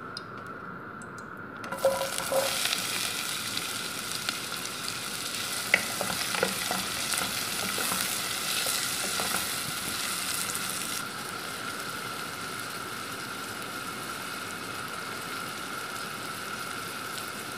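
Chopped red onion and garlic hit hot oil in a pot about two seconds in and start sizzling steadily, with a wooden spoon stirring and clicking against the pot for several seconds. The sizzle eases a little after about eleven seconds, over a faint steady tone.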